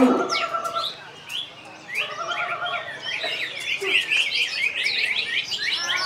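Cucak ijo (green leafbird) singing: a few held, whistled notes near the start, then from about two seconds in a fast, dense run of chirps and twittering phrases.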